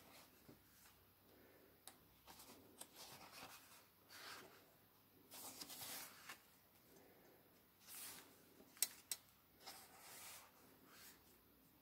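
Painted pages of a Dylusions square art journal being turned by hand: faint paper rustles and swishes, with a couple of sharp little flicks about nine seconds in.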